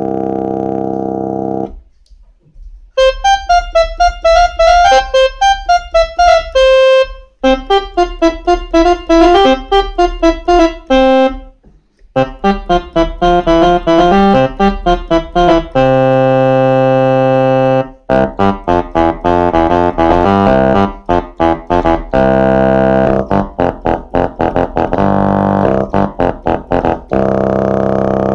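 Kawai FS660 portable electronic keyboard played by hand, showing off its preset voices. A held chord ends, and after a short pause comes a melody of quick separate notes on preset 37. After another pause about twelve seconds in, preset 38 plays quick notes and held chords.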